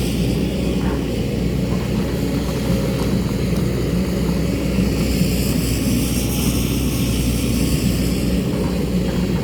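JCB excavator's diesel engine running steadily under working load, with a faint high whine that drifts in pitch and a few light ticks.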